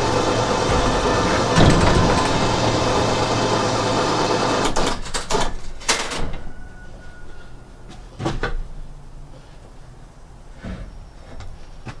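Electric winch motor running steadily with a low hum as it hoists a large log on log tongs, stopping about five seconds in with a quick run of clicks and clunks. A few separate knocks follow as the log settles.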